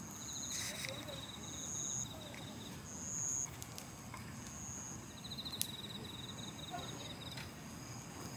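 Insects singing. One repeats a short, high, steady note about once a second. The other gives a lower, rapidly pulsed trill in two long runs, the second starting about five seconds in. A few faint clicks and knocks come in between.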